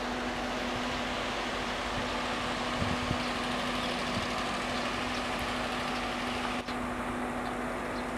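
Steady mechanical hum holding one constant low tone over a broad hiss, with a brief dip about six and a half seconds in.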